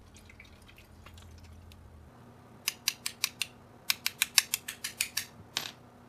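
A run of sharp, light clicks in two quick groups, about half a dozen and then about a dozen, followed near the end by a short hiss.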